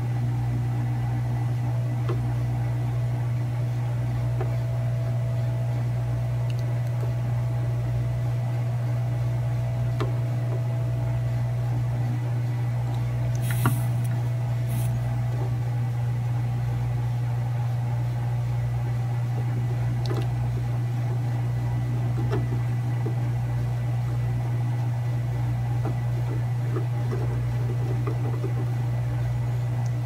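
Steady low hum of bench equipment, with one brief click about fourteen seconds in.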